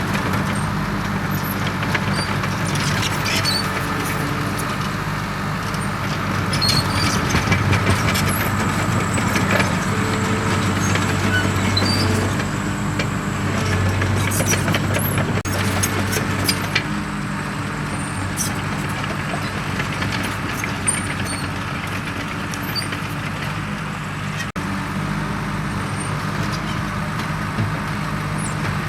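Komatsu D37EX crawler dozer's diesel engine running steadily, getting louder for several seconds in the middle as it works, with scattered short clicks and knocks.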